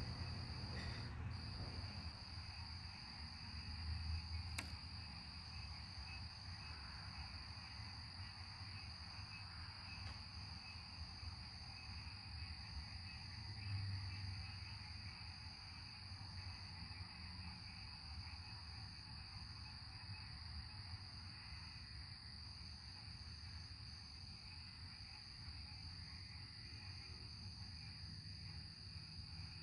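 Steady high-pitched chorus of night insects, with low rumbles of distant thunder swelling up about four seconds in and again around fourteen seconds.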